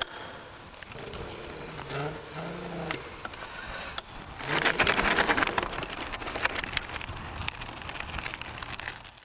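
Two-motor Pi electric bike rolling away across a concrete floor and out through a doorway: tyre and rolling noise with a fine crackle of grit, louder from about halfway through.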